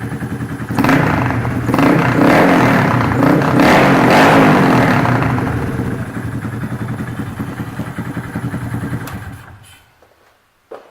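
2015 Honda Grom's 125 cc single-cylinder four-stroke engine, fitted with an aftermarket exhaust and pod filters, idling with a steady pulse. It is revved in several blips for a few seconds, drops back to idle, then is shut off near the end, followed by a single click.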